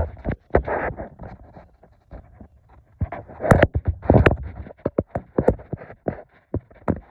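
Handling noise from a phone: fingers rubbing and knocking against its body and microphone, making an irregular run of scrapes and sharp clicks.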